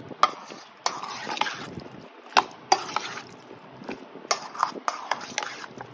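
A hand squishing and turning raw chicken pieces in a wet curd marinade in a stainless steel bowl: irregular wet squelches with several sharp clicks.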